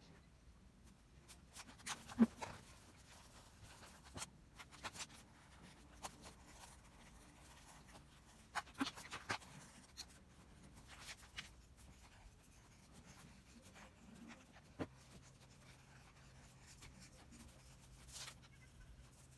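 Faint scratching and tapping of a pen drawing on sketchbook paper, in scattered strokes with a few sharper clicks. A faint low hum comes in about three-quarters of the way through.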